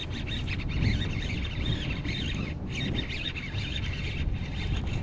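Birds calling in a continuous, wavering chatter with a few short breaks, over a low rumble.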